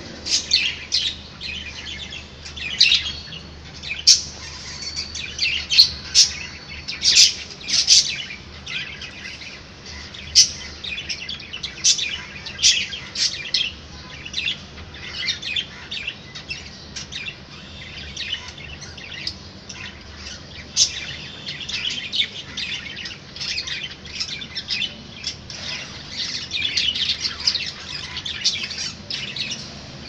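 A group of budgerigars chattering: a constant stream of short, high chirps and squawks, with the loudest sharp calls in the first half.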